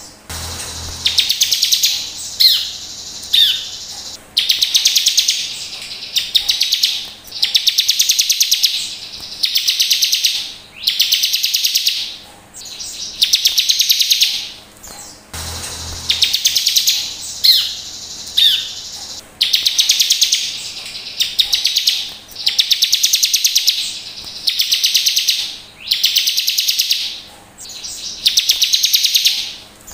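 Ciblek (bar-winged prinia) song: fast, buzzy trilled phrases, each about a second long, repeated every one and a half to two seconds with a few quick rising notes between them. It is played as a lure to set other ciblek singing.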